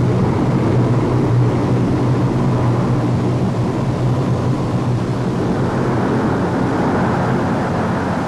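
Turboprop engines of a ski-equipped C-130 Hercules running steadily in cruise flight: an even, low hum with no change in pitch or level.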